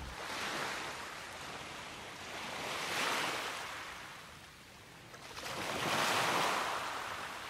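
Ocean surf: waves rushing in and washing back, swelling three times about three seconds apart.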